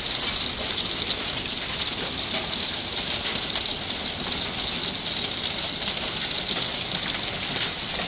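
Popcorn-sized hail and rain coming down hard: a dense, steady hiss with many small ticks of pellets striking the ground and hard surfaces.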